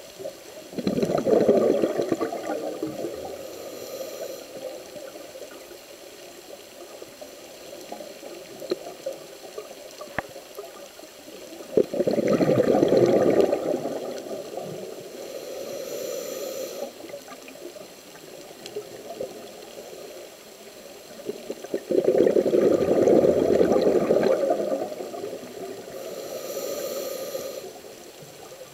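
Scuba diver breathing through a regulator underwater: three rushes of exhaled bubbles about ten seconds apart, each lasting two to three seconds, with a fainter high hiss between them.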